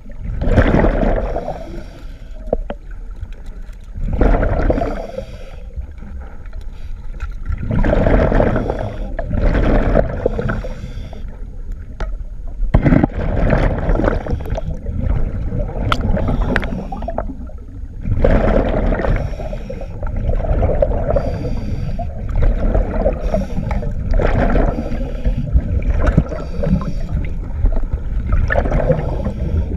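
A scuba diver breathing underwater through a regulator: rushing, gurgling bursts of exhaled bubbles alternating with inhalations, coming in surges every few seconds.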